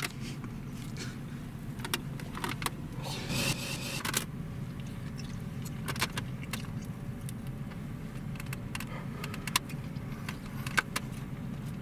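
A car running, heard from inside the cabin: a steady low rumble with scattered small clicks and rattles, and a brief hiss about three seconds in.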